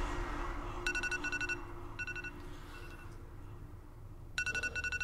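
Smartphone alarm going off: short bursts of rapid beeping at a few fixed high pitches, repeating several times, the first about a second in and a louder burst near the end.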